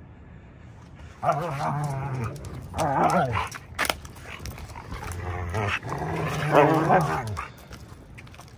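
Dogs play-wrestling, one giving a wavering growl in two bouts of about two seconds each: the first about a second in, the second past the middle.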